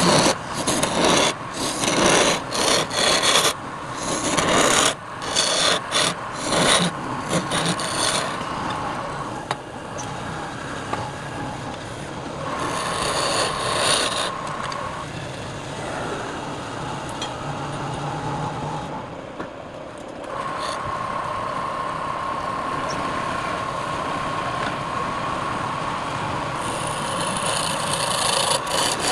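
Wood spinning on a lathe while a turning tool cuts it. The first several seconds come in short, loud, irregular passes, then the cutting settles into a steadier scraping over a steady whine.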